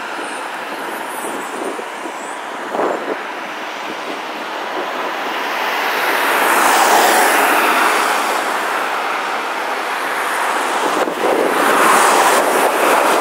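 Road traffic on a wide city street: a steady hiss of cars passing, swelling as vehicles go by about halfway through and again near the end.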